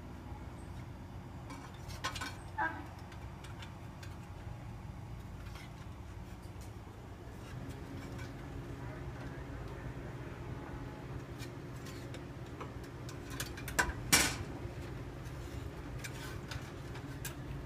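Scattered light metallic clinks and taps of tools and soft copper sheet being handled during copper soldering work, over a steady low hum. One sharper knock comes about fourteen seconds in.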